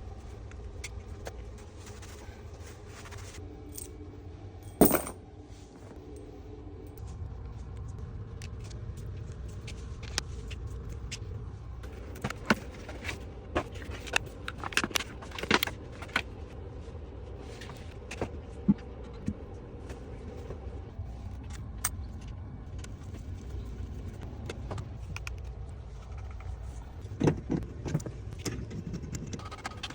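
Scattered metallic clinks, knocks and scrapes of hand tools and fittings being handled while a toilet is removed and fitted, with one loud knock about five seconds in, over a steady low rumble.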